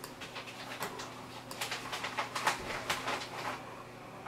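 A run of quick small clicks, several a second, from a computer mouse's buttons working the on-screen browser, over a faint low hum.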